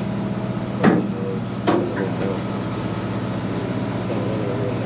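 Steady low drone of the boat's engine running, with two sharp knocks a little under a second apart about a second in.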